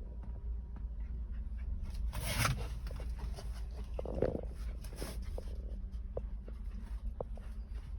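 A Rottweiler–shepherd mix dog making a short breathy huff about two seconds in and a brief vocal sound about four seconds in, with small clicks, over a steady low hum.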